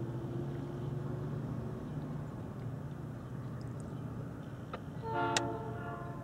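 A single horn blast about a second long, made of several tones sounding together, about five seconds in, over steady low background rumble.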